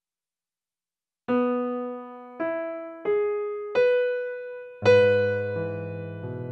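Background music on electric piano: after about a second of silence, a rising run of four single notes, then a full chord with low bass notes that rings on.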